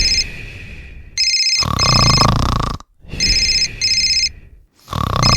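Telephone ringing in double rings, about every two seconds, over a person snoring loudly in long rasping breaths.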